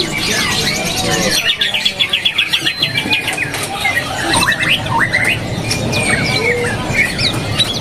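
Many caged songbirds chirping and whistling at once, overlapping calls from several birds. A fast run of repeated notes, about nine a second, comes between about one and a half and three seconds in.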